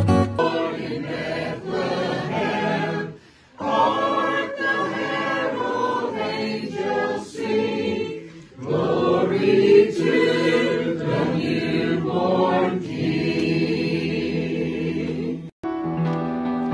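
A group of voices singing a Christmas carol in short clips spliced together, breaking off briefly three times where one clip cuts to the next.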